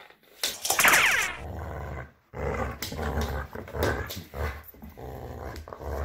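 Dog growling in play while tugging on a sock, with a loud high yelp about a second in.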